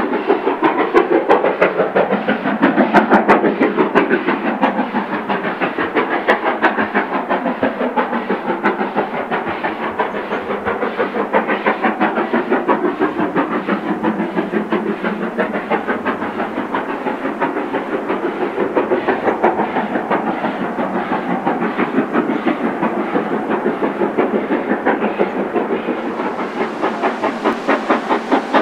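Steam locomotive working hard as it hauls a train, its exhaust beating in a fast, even rhythm. Near the end a high steam hiss joins in.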